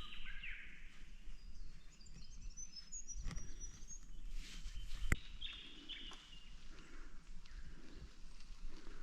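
Birds calling in bush, a few short chirping phrases scattered through, over a low rumble of wind on the microphone. There are two sharp clicks, one about three seconds in and a louder one about five seconds in.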